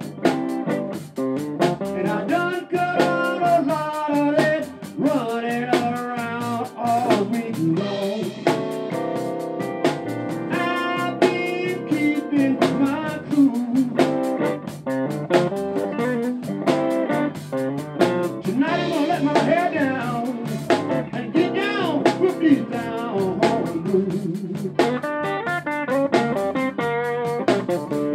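Live blues band playing: electric guitar, electric bass and drum kit, with guitar notes bending in pitch over a steady beat.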